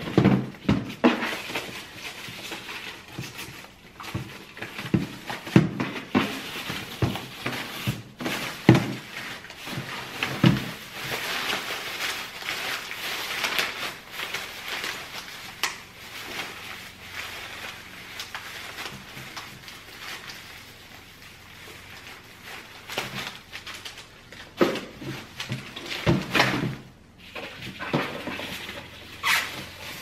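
Thin plastic bin bags rustling and crinkling as full rubbish bags are lifted out of a pull-out kitchen waste bin, with a number of knocks and thuds from the plastic bin inserts and the drawer.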